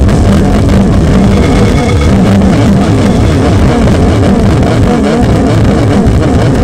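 Der Marebrechst, a handmade amplified noise instrument, producing a loud, dense wall of noise that is heaviest in the low end, with a low hum breaking in and out during the first few seconds.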